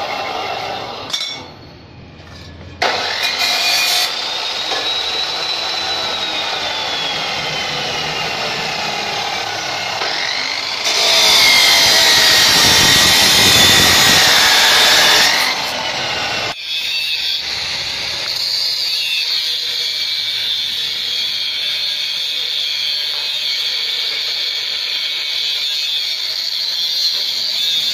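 Abrasive chop saw (cut-off machine) with a green abrasive wheel running and cutting steel pipe. It gives a steady whine that shifts in pitch. It is loudest and harshest for about four seconds in the middle, while the wheel grinds through the steel throwing sparks.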